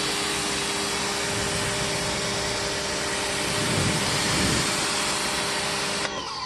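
Electric pressure washer running and spraying water through its yellow nozzle tip: a steady motor hum under a hiss of spray. It cuts out about six seconds in, the motor winding down.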